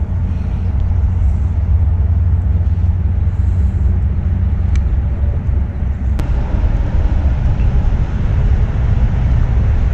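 Motor of a motorized pool float running steadily, a loud low hum, with two short clicks about five and six seconds in.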